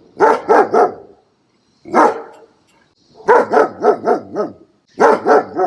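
Puppy barking in quick runs of short barks: three, then a single bark, then about five, then three more.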